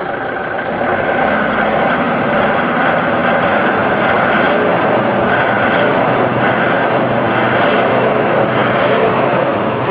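Vehicle engine running loudly under revs, getting louder about a second in and then held steady.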